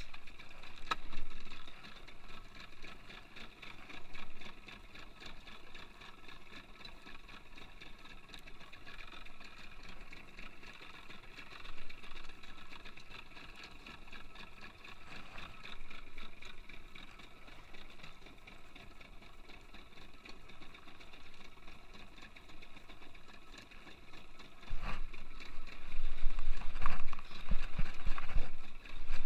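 Small fishing boat's engine running steadily. Near the end it gets much louder, with low rumbling and knocks.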